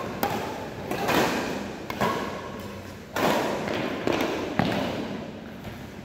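Badminton rally: rackets striking the shuttlecock and feet landing on the court, sharp hits about once a second, echoing in a large hall.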